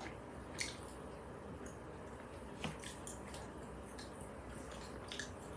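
Quiet room tone with a few faint, short clicks scattered through it.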